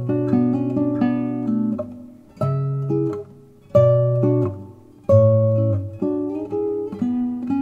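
Solo nylon-string classical guitar, built by Christos Vouladakis, played fingerstyle: bass notes under a melody line in a slow piece. The music comes in short phrases, each opening with a firmly plucked chord that rings and fades before the next, about four in all.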